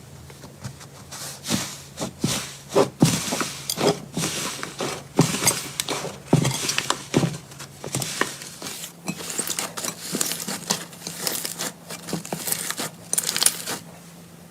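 Slime being squeezed and worked by hand, giving a quick irregular run of sticky pops, clicks and crackles.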